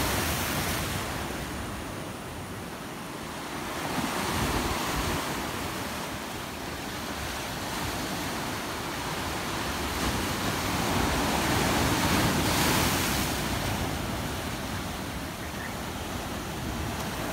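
Sea waves washing and surging, swelling about four seconds in and again around twelve seconds.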